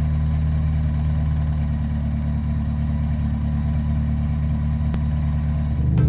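Car engine idling steadily, a constant low hum with no change in speed.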